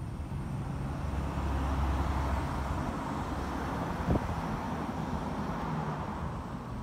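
Motor vehicle noise: a steady low engine hum under a louder swell of vehicle sound that rises and fades through the middle, with a single sharp click about four seconds in.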